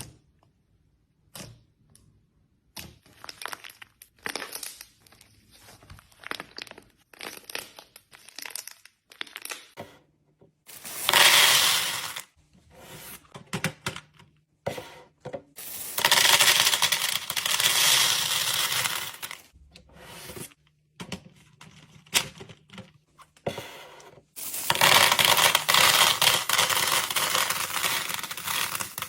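Slime being handled, heard as scattered sharp crackles and pops, then three long, loud crunching, tearing noises.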